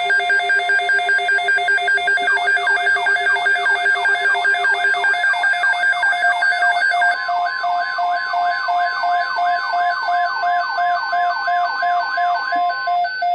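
Layered electronic emergency alert tones: steady pulsing beeps, joined about two seconds in by a repeating falling sweep about twice a second, with a further steady tone entering about halfway through.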